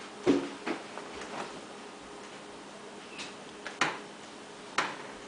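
Irregular light knocks and taps, about five or six, the loudest about a third of a second in, as hands pick mushroom slices off a plastic cutting board and lay them on bread in a metal baking pan.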